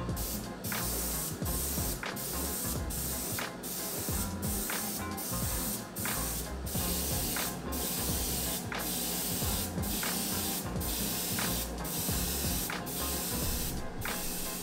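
Airbrush spraying: a steady hiss of atomised paint, broken by short gaps about every two-thirds of a second.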